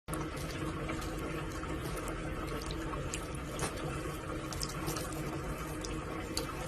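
Steady running water, like a tap running into a sink, with scattered small splashes and ticks.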